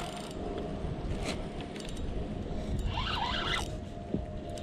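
Spinning reel being cranked while a fish is played on a bent rod, its gears whirring, over a steady low rumble.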